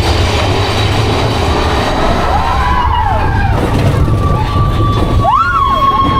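Big Thunder Mountain Railroad's mine-train roller coaster running along its track, a steady low rumble heard from the front car. From about halfway in, pitched sounds that rise and fall, and then a held high tone, sound over the rumble.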